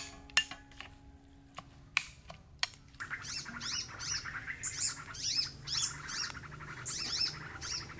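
A metal spoon clinks sharply against a ceramic bowl four times in the first few seconds while flaking cooked fish. From about three seconds in, small birds chirp busily and continuously.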